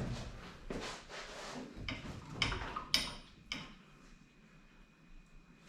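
Metal clunks and scrapes as an engine and transmission are worked out on an engine hoist while the assembly is hung up: several sharp knocks in the first few seconds, then quieter.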